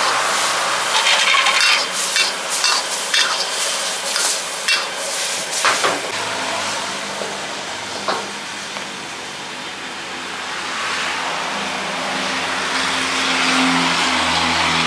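Char kway teow stir-frying in a wok: a metal spatula scraping and clanking against the wok over a steady sizzle for about the first six seconds. After that a steady hiss goes on, and a low hum grows louder near the end.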